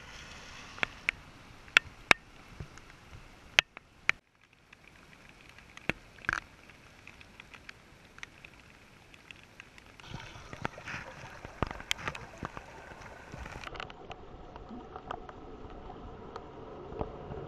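Storm water trickling and gurgling through a collapsed storm drain pipe, with several sharp clicks and knocks in the first few seconds. Near the end the sound plays at half speed, duller than before.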